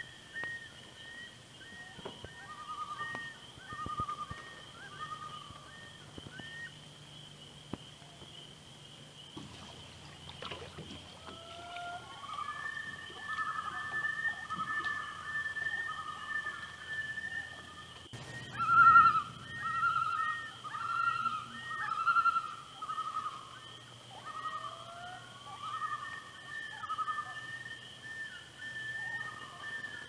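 Common loons calling over a lake: runs of short, repeated wavering notes, loudest about two-thirds of the way through, over a faint steady high tone.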